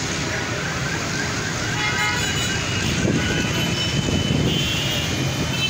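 Traffic noise of a jammed city intersection: engines of cars, auto-rickshaws and motorcycles running, with several short horn beeps at different pitches from about two seconds in.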